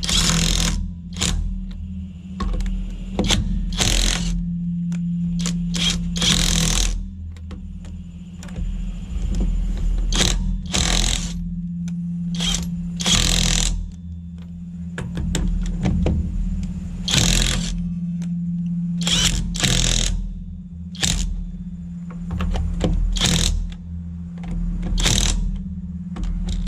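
Cordless 1/2-inch drive impact wrench firing in many short bursts, each about half a second, as it breaks loose and spins off wheel lug nuts. A steady low hum runs underneath.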